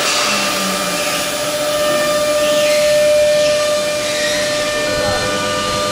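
CNC router spindle running with a steady high whine as its carving bit engraves a wooden board, over an even hiss of cutting noise.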